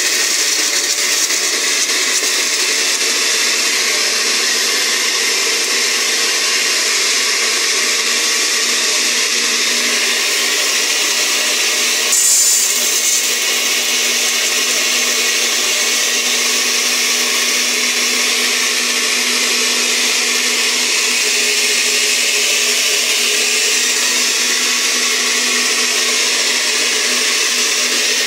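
Electric countertop blender running steadily at speed, grinding tomatoes, garlic, onion and water into a purée, with a brief louder surge about twelve seconds in.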